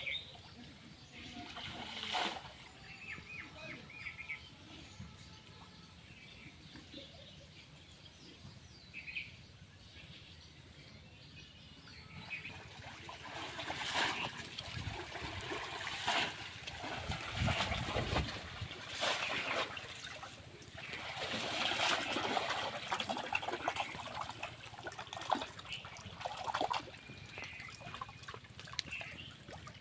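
Pond water splashing and sloshing as a person wades and gropes with his hands, quiet at first and then, from about halfway in, a run of irregular splashes.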